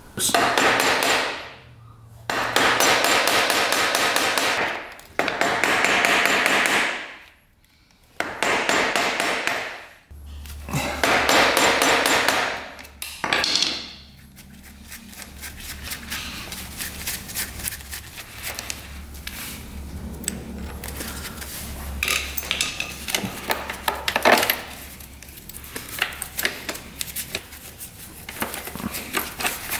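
Impact wrench hammering in five bursts of one to three seconds, each a fast run of impacts, while a nut on the dirt bike is being broken loose, most likely to remove the sprocket. Lighter metallic clinks and clicks of parts being handled follow.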